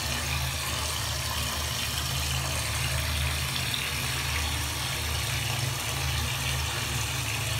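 Water pouring steadily from a hose into a plastic basin, splashing and frothing as the basin fills.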